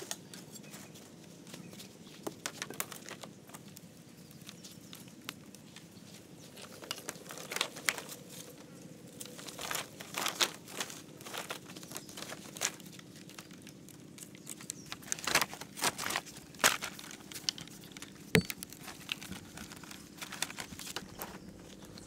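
Irregular crackling, rustling and light knocks, the sound of hands handling dry material, with busier stretches in the middle and later on.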